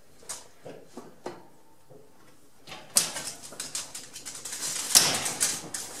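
Home-made wooden rack-and-pinion gate latch being turned by hand: a few single clicks, then from about halfway a quick run of clicking and rattling from the wooden gears and bar.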